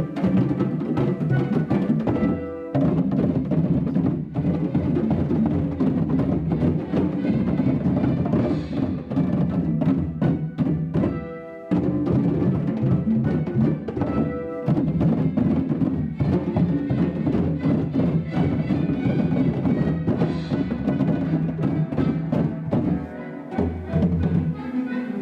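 Music with a busy percussive beat, pausing briefly a few times.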